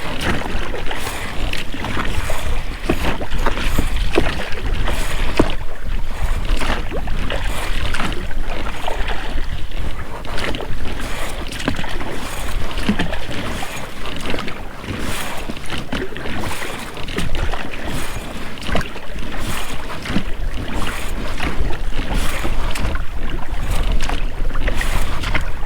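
Oars of an inflatable rowboat dipping and splashing through water, with the rubber rowlocks knocking and creaking as they swing.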